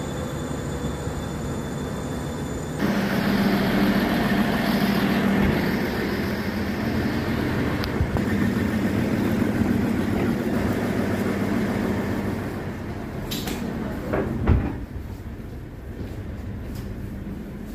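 SKPL SD85 diesel multiple unit running at the platform: a steady rumbling hum that gets suddenly louder about three seconds in, with a low drone under it. Two sharp knocks come about three-quarters of the way through, and a quieter hum follows, as heard inside the car.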